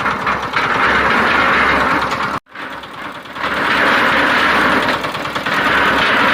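Portable cement concrete mixer running, its engine and turning drum giving a steady mechanical noise. The sound cuts out abruptly about two and a half seconds in, then comes back up within a second or so.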